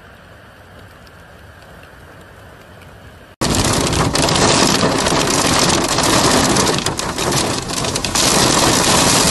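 Wind-driven heavy rainstorm: after a quieter hiss of rain and traffic on a wet road, a loud, dense roar of rain and gusting wind on the microphone starts abruptly about three seconds in.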